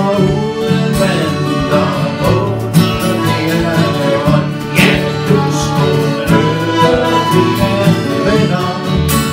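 Live acoustic folk-style music: an accordion and two acoustic guitars strumming, with a man's voice singing over them.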